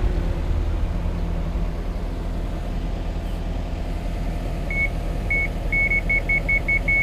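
Yanmar excavator's diesel engine running steadily. From about two-thirds of the way in, a high electronic beep sounds and repeats faster and faster until it is almost continuous.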